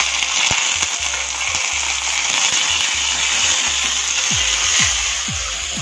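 Tempering of curry leaves, mustard seeds, cumin, dried red chillies and garlic sizzling steadily in hot oil in a kadai.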